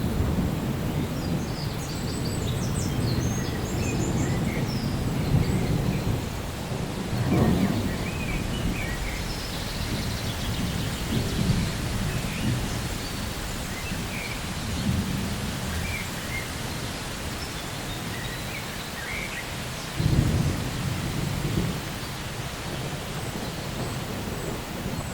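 Thunder rumbling low in rolling waves over steady rain, with a sharper, louder clap about twenty seconds in.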